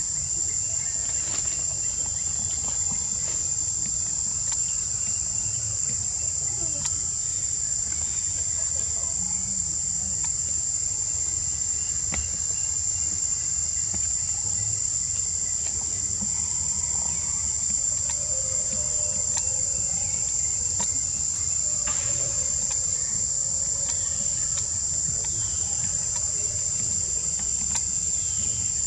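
A steady, high-pitched insect chorus: one unbroken shrill drone, with a faint low rumble underneath.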